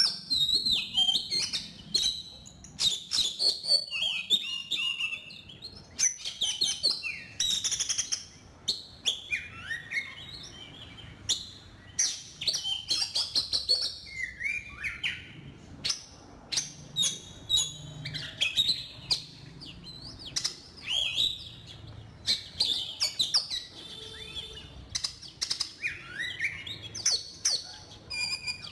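Oriental magpie-robin song: a rapid, varied run of short whistled phrases and chirps, with sharp clicks between them and brief pauses between the phrases. It is a recording of the kind played as a lure to call the bird in.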